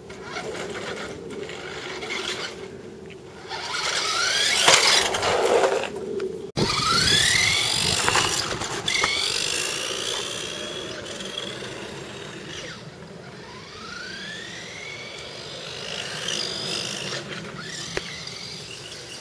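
Electric motor of a 1990s toy RC car whining, rising in pitch in repeated sweeps as the car accelerates, with rushing noise loudest a few seconds in.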